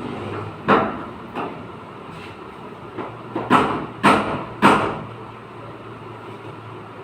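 Hammer striking car body sheet metal during dent repair: a series of irregular sharp metallic knocks, the loudest three coming in quick succession about half a second apart in the middle, with lighter taps between them.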